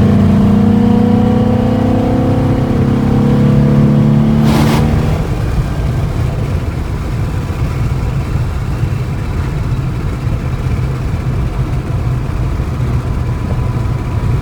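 2012 Ford Mustang Boss 302's 5.0-litre V8 pulling under acceleration, its note climbing steadily for about four and a half seconds. A brief sharp sound follows, then the engine note falls away into a steady low road rumble.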